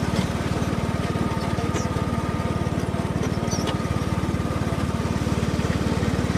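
John Deere riding lawn mower's 19.5-horsepower engine running at a steady speed while the mower is driven, with a faint steady whine over it.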